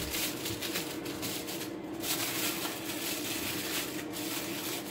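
Aluminium foil crinkling and rustling as it is folded and pressed tight around a block of kebab meat, in a steady run of small crackles, with a steady low hum underneath.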